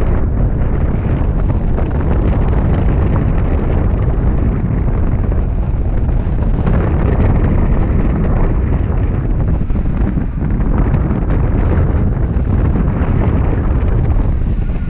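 Wind buffeting the microphone of a camera mounted on a hang glider in flight: a loud, steady rumble of rushing air, heaviest in the low end.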